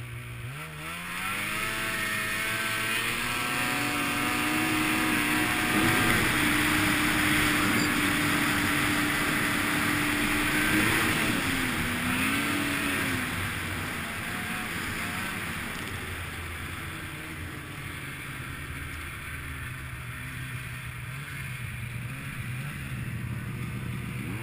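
Snowmobile engine revving up as the sled accelerates, its pitch climbing over the first few seconds, then held at high revs with wind rushing past. About twelve seconds in the revs dip and waver, then ease off to a lower, quieter run.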